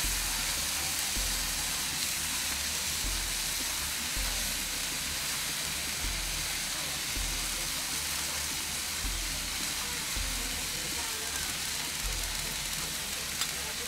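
Beef rump steaks sizzling steadily on a hot ridged grill plate, an even hiss of fat and juices frying.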